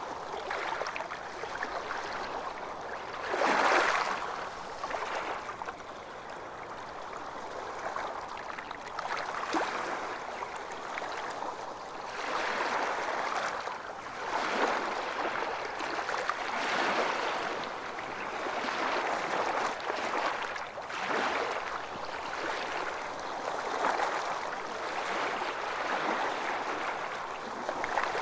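Calm small waves lapping and splashing in irregular surges every couple of seconds, with one splash louder than the rest about four seconds in.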